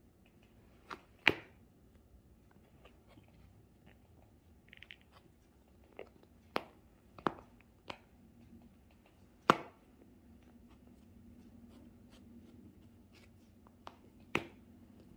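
Cats biting and pawing at a fabric catnip pillow toy: scattered sharp crunches and crackles, about eight in all, the loudest about a second in and again near the middle.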